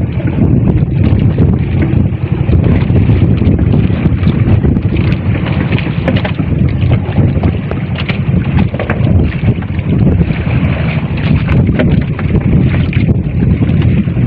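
Loud wind buffeting the microphone, with water rushing along the hull of a small outrigger fishing boat moving through rough sea.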